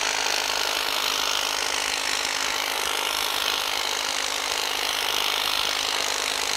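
Honda battery-powered hedge trimmer running steadily, its reciprocating blades cutting along the side of a leafy shrub, with a steady low hum under the noise of the cutting.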